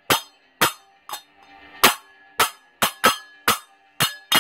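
A pair of small children's toy hand cymbals clashed together about ten times at an uneven pace, each clash a sharp hit with a short, thin ring. They are too small to make a proper cymbal sound.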